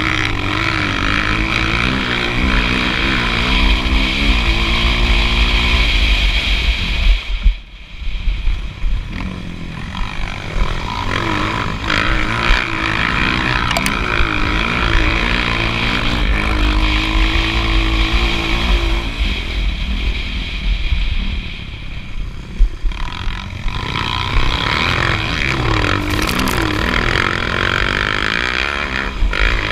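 A motocross bike's engine, heard from on board, revving hard and rising and falling in pitch over and over as the rider accelerates and shifts gears. The engine drops off briefly about eight seconds in and again around twenty-two seconds before pulling hard once more.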